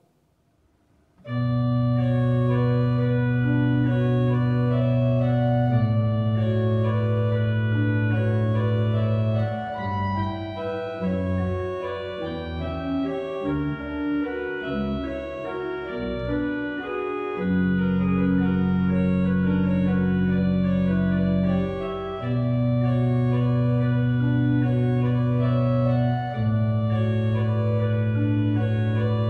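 Eisenbarth pipe organ playing: full chords come in suddenly about a second in, with long-held low pedal notes beneath, a stretch of quicker moving notes in the middle, then held chords again.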